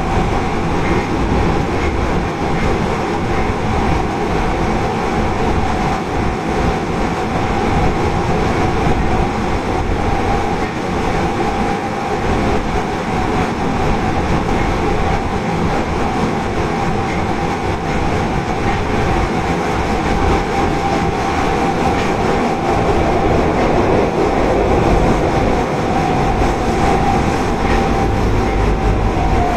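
Osaka Metro Tanimachi Line subway car 22659, a 22 series car with a Hitachi GTO inverter, running between stations: a steady rumble of wheels on rail with a steady whine that drops slightly in pitch near the end.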